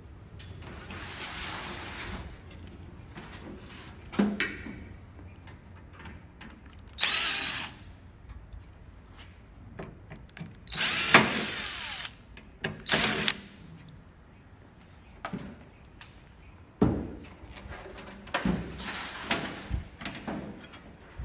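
Cordless drill-driver driving screws into the black metal side panel of an electric fireplace insert, the motor run in several short spurts. Knocks and clicks from handling the metal casing come in between, the sharpest about 4 s and 17 s in and a cluster near the end.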